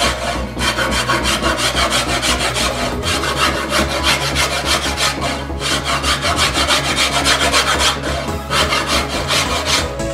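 Hand rasp worked quickly back and forth over a wooden bow core held in a vise, in runs of rapid strokes broken by short pauses. Background music underneath.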